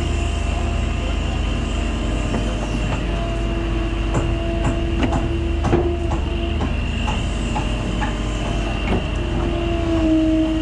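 Excavator's diesel engine running under load, with a steady hydraulic whine that comes in and holds as the boom and bucket move, shifting up a little near the end. Short clunks and scrapes from the bucket working dirt are scattered through it, most in the middle.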